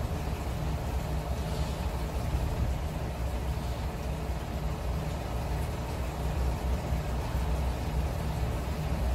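Steady low engine hum running without change.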